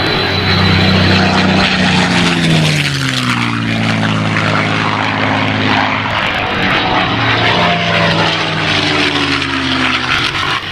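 P-51D Mustang's Packard Merlin V-12 and propeller in low fly-bys, the engine note dropping in pitch twice as the aircraft passes, with a thin high whistle over the engine.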